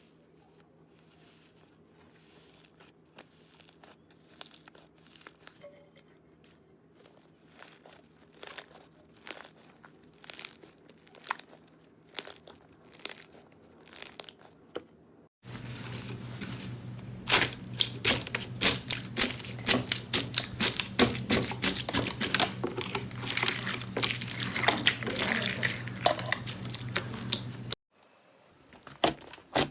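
Slime being squeezed and pressed by hand, giving a quick irregular run of crackling, popping clicks. After a cut about halfway, the crackling is much louder, over a low steady hum.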